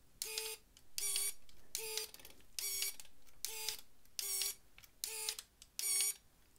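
Shimano Dura-Ace 9070 Di2 rear derailleur's electric motor whirring through eight short shifts, evenly spaced a little under a second apart. The unit is shifting normally on a freshly charged battery.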